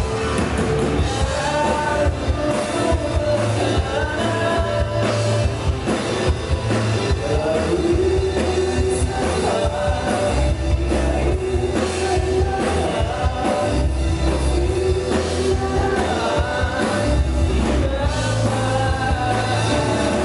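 Rock band playing live: drum kit, bass and a sung melody over the band.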